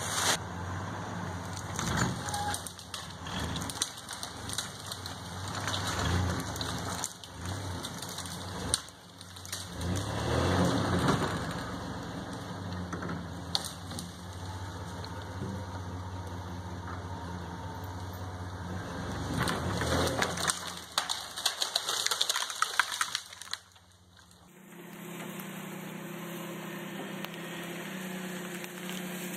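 Pickup truck engine running under load as it drags a chained tree across the forest floor, with crackling and snapping from the dragged branches and dead leaves. About 24 seconds in the sound changes abruptly to a steadier engine idle.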